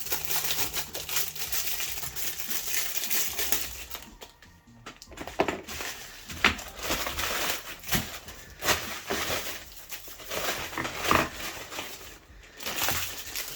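Plastic packaging crinkling and rustling in repeated short bursts as small parcels are opened and handled, with a quieter lull about four seconds in.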